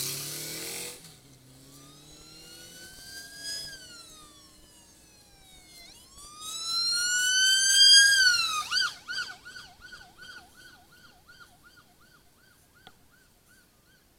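Vehicle siren sounding: a few long wails that rise and fall in pitch, then a switch to a fast yelp of about three cycles a second that fades away as the vehicle moves off. A brief rush of noise comes in the first second.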